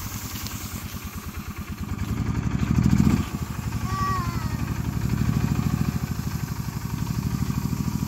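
Small engine of a Cushman utility vehicle running at low speed as it tows a cut cedar tree across grass, an even pulsing chug that swells to its loudest about three seconds in and then settles back.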